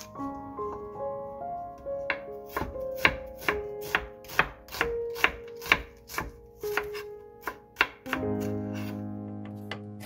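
Knife slicing through an onion onto a wooden cutting board: sharp clicking cuts at about three a second, starting about two seconds in and stopping about two seconds before the end. A soft melody of held notes plays underneath.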